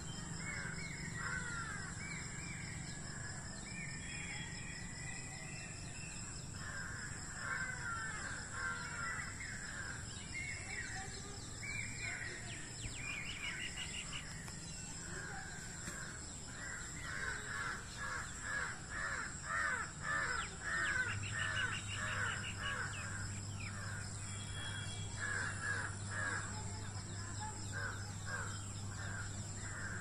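Wild birds calling in runs of short, harsh, crow-like calls, busiest a little past halfway, over a steady high-pitched whine, with a low hum coming in about two-thirds of the way through.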